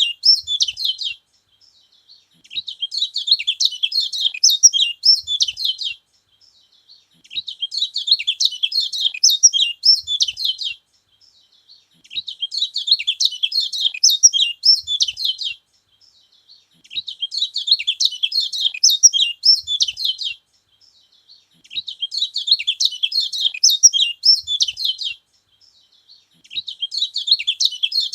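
Kecial kuning, a yellow white-eye, singing: fast, high twittering phrases about three and a half seconds long, repeated at a steady pace with a pause of about a second between them.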